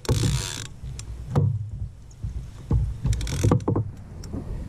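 Knocks and scrapes of gear being handled against a plastic fishing kayak, with two short hissing rushes, one at the start and one about three seconds in.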